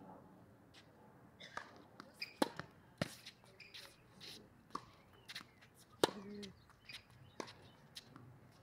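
Tennis balls struck by rackets and bouncing on a hard court during a rally: sharp pops a second or a few seconds apart, the loudest about six seconds in, with lighter taps and footsteps between.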